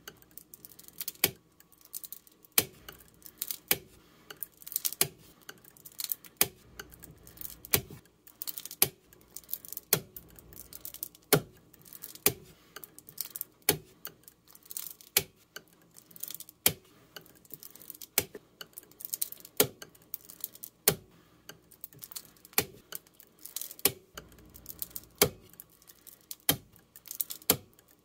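Wire soap cutter slicing a cold process soap loaf into thin bars, one cut about every second and a quarter. Each stroke is the wire drawing through the soap and ending in a sharp click as the wire hits the plastic cutting base.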